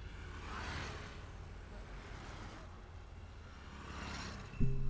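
Road traffic going past: a steady low rumble with a few vehicles swishing by one after another. Near the end, background music comes in with a low held note.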